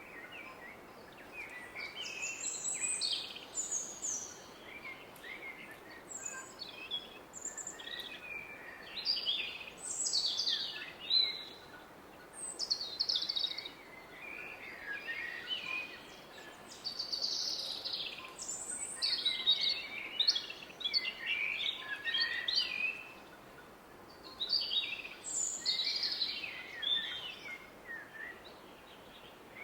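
Woodland birds singing in short, repeated phrases over the steady rush of a distant river.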